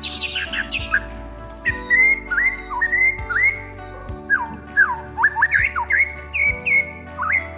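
White-rumped shama (murai batu) singing a fast run of loud whistled notes, many of them sliding sharply up or down, with hardly a pause between phrases.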